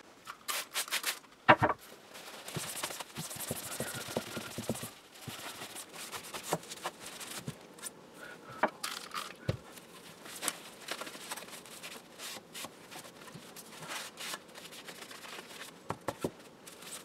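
A crystal radio's black base panel being handled and wiped with a cloth rag on a paper-covered bench: irregular clicks and taps over rubbing and rustling, with one louder knock about a second and a half in.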